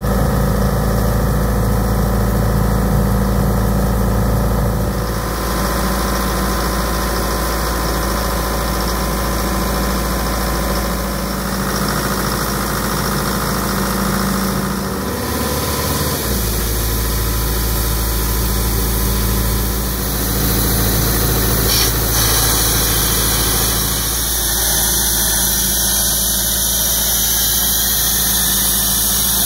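Diesel engine of a 2012 Doosan 10/105 mobile air compressor running steadily.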